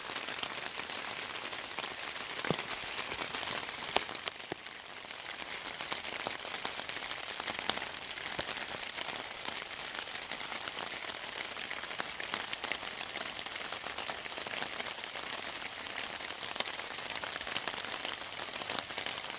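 Steady rain falling on a tarp overhead, with a few sharp ticks scattered through it.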